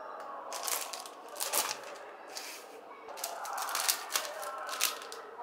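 Clear plastic wrapping on a paper pad crinkling and crackling in irregular bursts as it is handled.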